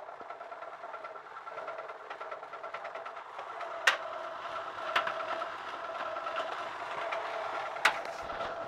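Otsein Hoover OHNV175 tumble dryer running with a steady high-pitched whine over a fast rattle, with three sharp knocks, twice close together and once near the end. This is the dryer's fault noise, the 'ruido infernal' of a breakdown.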